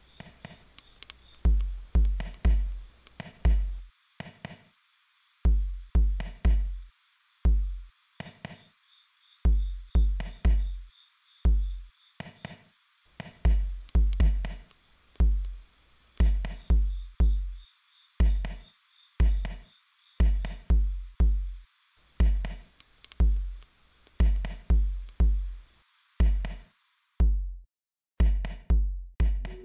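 Electronic drum-machine beat: synthesized kick drums, each dropping quickly in pitch, in a syncopated pattern over a steady hiss. The hiss cuts out near the end while the kicks carry on.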